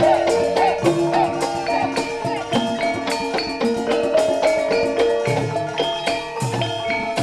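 Javanese gamelan playing: tuned metal percussion rings out held notes that step from pitch to pitch, over regular drum strokes.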